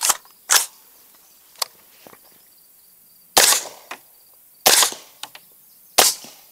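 Five suppressed shots from a 300 Blackout AR-style rifle: two about half a second apart right at the start, then three more spaced a little over a second apart in the second half, each a sharp crack with a brief tail. Fainter short ticks between the shots are the ejected brass casings landing on the pickup truck.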